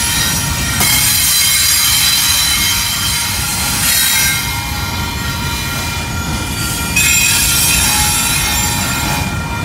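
Double-stack intermodal freight cars rolling past at a grade crossing, wheels squealing on the rails in steady high-pitched tones over a low rumble. The sound surges about a second in, again around four seconds and again around seven seconds.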